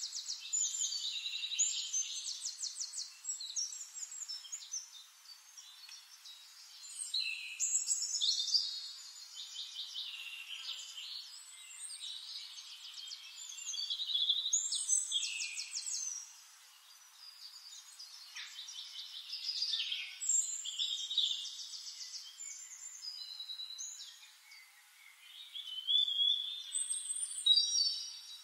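Birds singing: rapid high trills and quick down-slurred notes, in phrases that come every few seconds, with the loudest phrase near the end.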